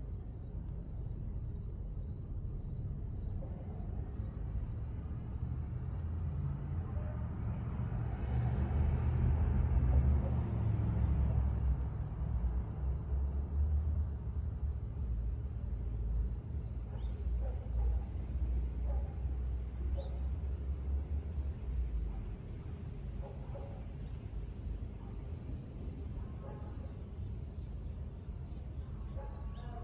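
Crickets chirping steadily in an even, high pulsing trill, over a low rumble that swells about eight seconds in and fades away before the last third.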